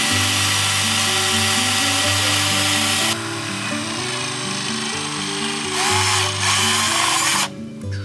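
Cordless drill running at speed as it bores into a wooden plank, in two spells: about three seconds at the start, then again for about two seconds near the end, each stopping sharply. Background music with a steady melody plays underneath throughout.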